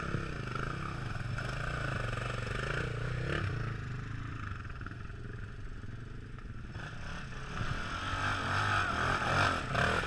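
Dirt bike engines revving as riders work through a deep mud hole, growing louder near the end as a bike powers through the mud.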